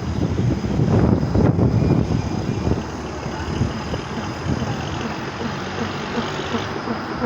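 A vehicle engine running. It is louder for the first couple of seconds, then settles into a steady idle with a regular pulse.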